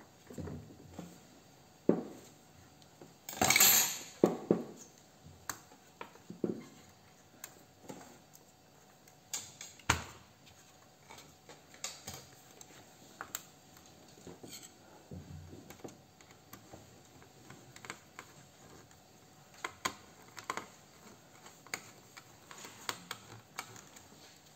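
Small irregular clicks, taps and light knocks of metal and plastic parts as a laptop's copper heat-pipe heatsink is handled and seated onto the motherboard. There is a louder burst of noise lasting about half a second, about three and a half seconds in.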